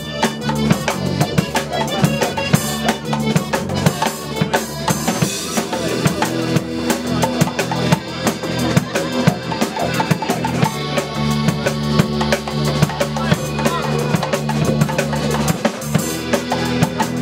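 Live folk band playing: a tuba bass line under melodeon, electric guitar and keyboard, with drums keeping a steady beat.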